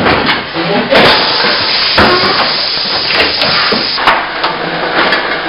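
Fully automatic carton tray stapling machine (Mezger SHA 81) running through its forming and stapling cycle: sharp clacks of the stapling strokes about once a second over a steady hiss.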